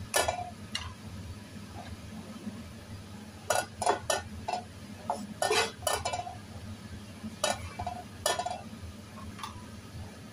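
A spatula knocking and scraping against a nonstick frying pan as a pat of butter is pushed around to melt it: a dozen or so short, sharp clinks and scrapes, bunched together in the middle, over a steady low hum.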